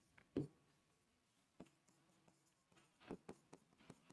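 Faint taps and light scratches of a stylus writing on an interactive display screen: a few separate taps, then a quicker cluster near the end.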